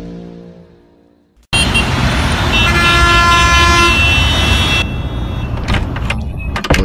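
Music fades out into a brief silence. Then busy city traffic ambience cuts in suddenly, loud, with several car horns honking at different pitches over the rumble. It eases near the end, where a few knocks are heard.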